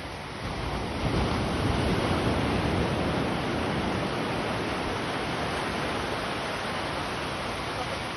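Water rushing, a steady wash of noise that swells about half a second in and then slowly eases off.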